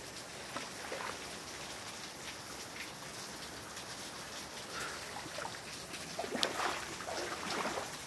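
Waterfall spray splashing onto rocks, a steady rain-like hiss.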